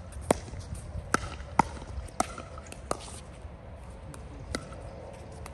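Pickleball paddles hitting a hard plastic ball in a rally: a run of sharp pops about half a second to a second apart, with a longer gap before one more a little after four seconds in.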